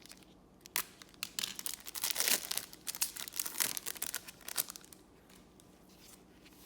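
Foil trading card pack wrapper crinkling and tearing as a pack is opened. A flurry of rustles starts about a second in, is loudest around two seconds in, and dies away near five seconds.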